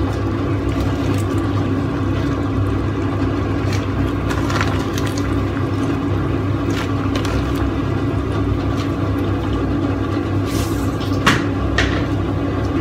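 A pot of potato soup boiling on an induction hob, a steady rushing hum, with a few soft knocks as handfuls of spinach are dropped into the saucepan, the sharpest near the end.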